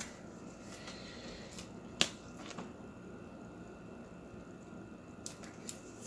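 Quiet handling of trading cards as they are sleeved: faint rustles and light clicks, with one sharp tap about two seconds in.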